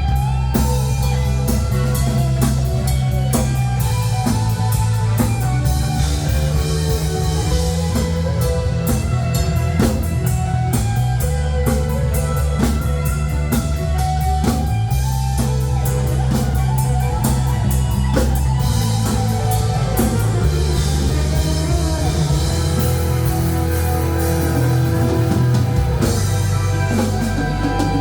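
Live band playing a rock-style pop number: drum kit, guitar and a bass line that steps between notes, steady and loud throughout.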